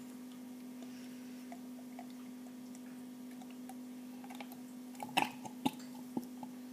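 Coconut milk poured softly into a glass cocktail shaker over ice cubes and cocoa powder, with a few small clicks and ticks about five seconds in. A steady low hum sits underneath.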